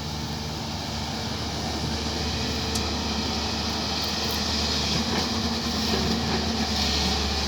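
Diesel engine of an earth-moving machine running steadily, growing a little louder after about two seconds.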